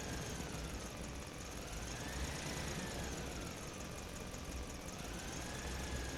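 A vehicle engine running steadily with a low rumble. A faint whine slowly falls, rises and falls again in pitch.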